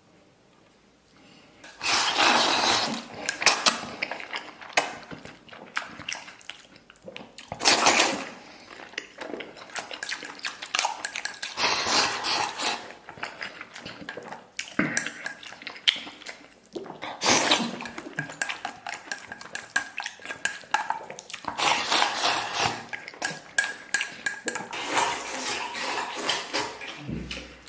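Dishes and cutlery clattering in repeated noisy bursts, starting about two seconds in.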